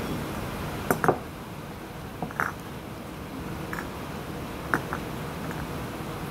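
Glass vases clinking and tapping against one another and the wooden tabletop as rose stems are set in them: several short sharp taps, the loudest pair about a second in, over a steady background hiss.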